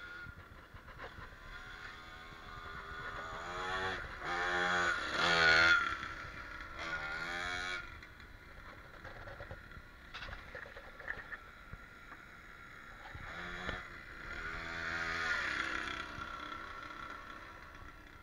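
Small mini cross dirt bike engine revving as it rides past twice, its pitch rising and falling. It is loudest about four to eight seconds in and again around fifteen seconds, and quieter in between.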